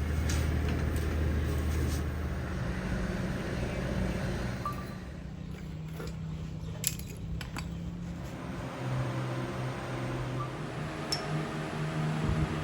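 An electric motor of a workshop machine running steadily. Its low hum changes pitch a few times, and a few sharp clicks come about seven seconds in.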